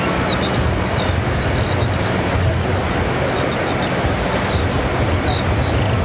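A layout soundtrack of distant cannon fire: a continuous low pounding rumble, with rapid short high chirps over it.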